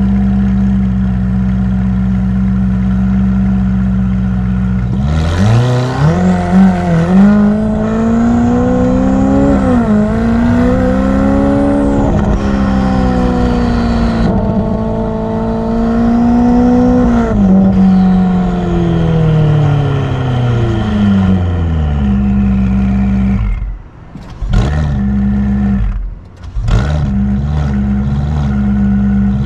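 Ferrari F8's twin-turbo V8 idling, then revved up about five seconds in and held at raised revs that waver up and down, with a faint high whistle rising and falling above it. The revs fall back to idle later on. Near the end come a couple of sharp quick blips before it settles back to idle.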